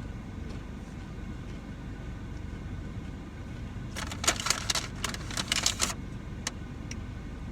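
Steady low rush of blowing air from a fan or air vent, with a burst of crisp crunching from about four to six seconds in as tortilla chips are bitten and chewed.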